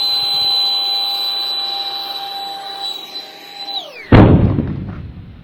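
An RC jet's motor holding a steady high whine at full power, then dropping away as the throttle is cut near the end. It is followed at once by a loud thump that dies away over about a second: the plane hitting the ground on a failed maiden launch.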